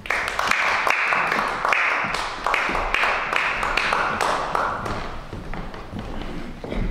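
A small audience applauding, with many separate hand claps, dying away over the last couple of seconds.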